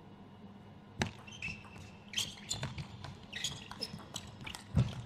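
Table tennis rally: the celluloid ball clicking sharply off the rubber-faced bats and the table in quick succession, starting about a second in, with short squeaks of shoes on the court floor. A dull thump comes near the end.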